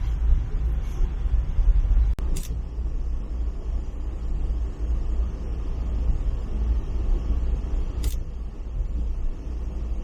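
Steady low rumble of a moving passenger train, heard while riding, with two brief high-pitched squeaks about two seconds and eight seconds in.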